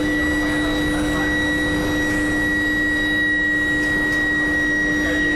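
Steel billet induction heating furnace running: a steady electrical hum with a high whine over it, unchanging, over an even rushing machine noise.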